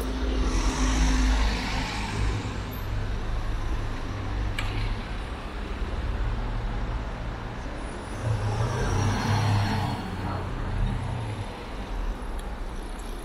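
Street traffic: a low, steady vehicle engine rumble, with passing vehicles swelling up about a second in and again about eight seconds in.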